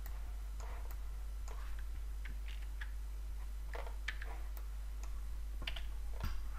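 Scattered soft clicks of a computer mouse and keyboard, irregular and a second or so apart, over a steady low electrical hum.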